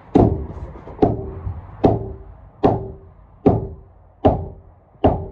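Seven heavy knocks on a SIP roof panel, a little under a second apart, each with a short ringing hum after it: the panel being knocked along onto the timber already in place so the join between it and the next panel closes up. Heard from inside the room beneath the panel.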